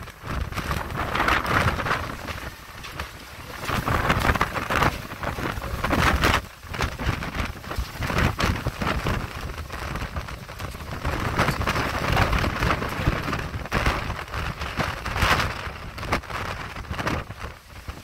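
Wind and rain in the eye of a Category 5 hurricane, coming in gusts every two or three seconds, with wind rumbling on the microphone.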